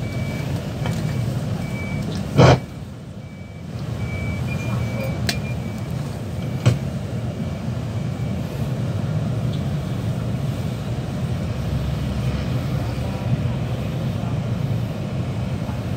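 Bus cabin rumble while the bus drives, with a high electronic beep repeating for the first several seconds. A loud knock about two and a half seconds in, and a smaller click a few seconds later.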